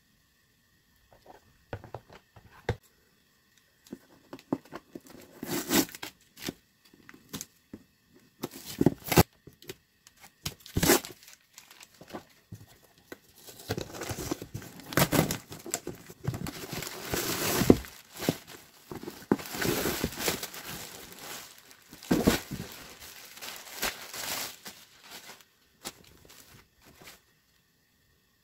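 A taped cardboard box being pulled open by force: scattered rips and clicks at first, then a long dense stretch of cardboard and packing tape tearing with crinkling of packaging, dying away near the end.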